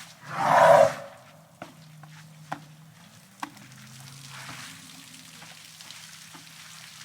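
Elephant snorting once, a short loud blast of air through the trunk about half a second in, followed by three sharp clicks about a second apart over a faint crackle.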